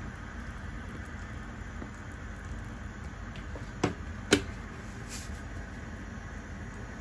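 Clay pot of pork, corn and carrot soup simmering on the hob, a steady low hiss. Two sharp clicks about four seconds in, half a second apart.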